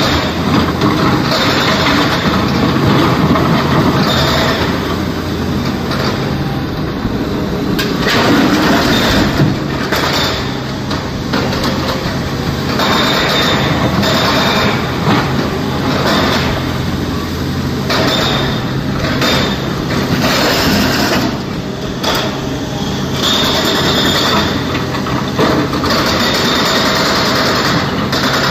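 SANY crawler excavator's diesel engine running steadily under load, while its steel bucket digs into broken quarry stone with irregular clattering and scraping of rock.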